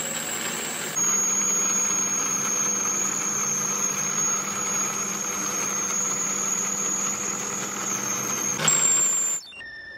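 Metal lathe running and turning a metal piston blank, with a steady high-pitched squeal over the machine's noise. It gets louder about a second in and cuts off abruptly near the end.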